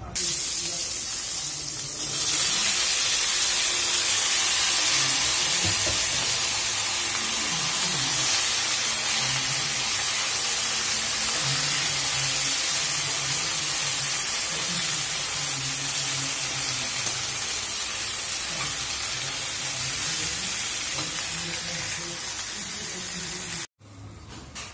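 Eggplant chunks frying in hot oil in a wok, a loud steady sizzle. It jumps up about two seconds in, eases off slowly, and cuts off suddenly near the end.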